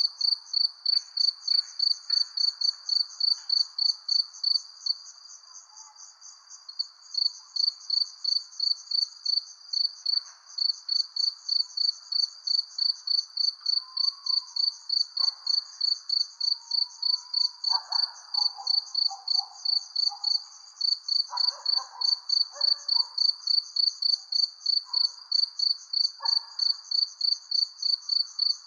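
Crickets chirping at night in a fast, even rhythm of about three to four high chirps a second, pausing for a couple of seconds about five seconds in. Fainter, irregular lower calls sound underneath.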